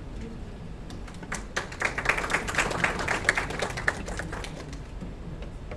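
Audience applauding, a brief patter of clapping that starts about a second in and dies away about four seconds in.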